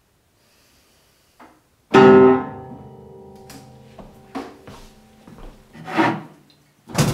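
Upright piano keys slammed down together: one loud chord of many notes about two seconds in, ringing out and fading. Then several short knocks and bumps, the loudest near the end.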